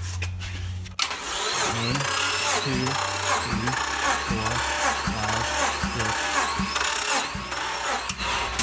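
Starter motor cranking a Nissan VG33E V6 with its spark plugs removed and the throttle held open, for a compression test on cylinder one. The crank starts about a second in and stops near the end, with a regular pulse about every two-thirds of a second.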